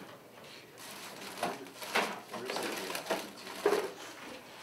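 Plastic-wrapped medical supplies crinkling and rustling as they are rummaged through in a bin, in irregular bursts starting about a second and a half in.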